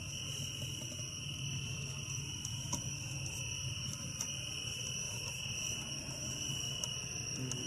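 Crickets trilling in one unbroken high steady note, over a low hum, with a few faint ticks.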